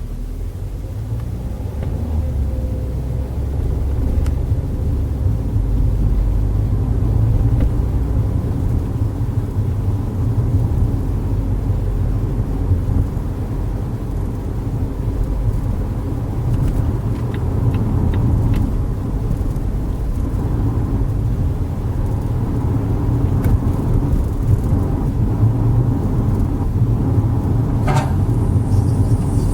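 Volvo V60 driving, with a steady low rumble of engine and road noise that grows louder over the first few seconds. Near the end a sharp metallic pop is followed by the start of a high squealing noise, an abnormal sound from the car.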